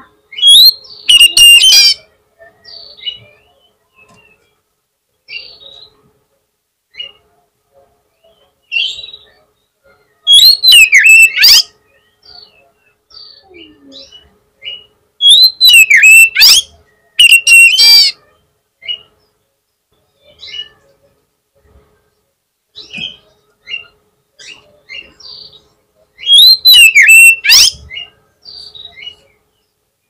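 Caged male oriental magpie-robin singing: four loud bouts of rapid, varied whistled and harsh notes, with soft scattered chirps between them. This is lure song, used to provoke rival magpie-robins into answering.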